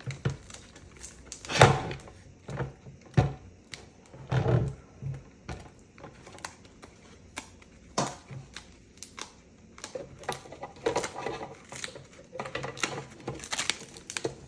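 Irregular plastic clicks and knocks from parts of a pet water fountain being handled and fitted together.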